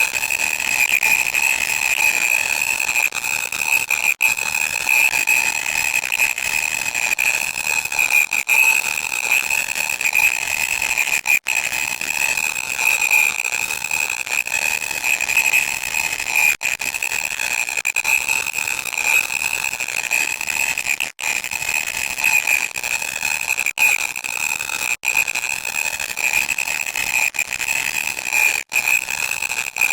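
Loud, harsh static noise with a steady high-pitched tone running through it, broken by brief cutouts every few seconds.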